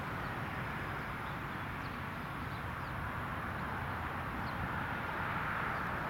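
Steady outdoor background noise with a few faint, brief bird chirps.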